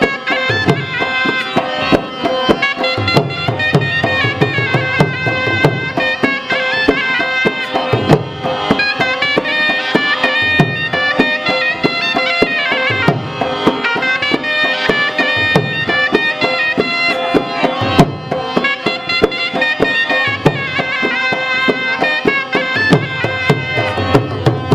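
Background music in a traditional folk style, with hand drums keeping a steady beat under a reedy wind-instrument melody.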